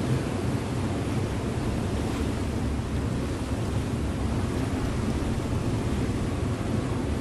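A river motor ship underway: its engine running with a steady low hum under the wash of water along the hull.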